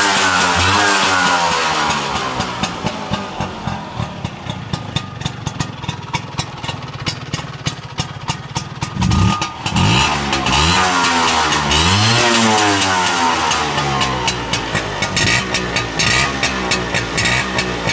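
Vintage Vespa's two-stroke single-cylinder engine breathing through a C.C.Corsa expansion exhaust. It is revved up and down, settles to a pulsing idle, then is blipped and revved again about nine seconds in before dropping back to idle.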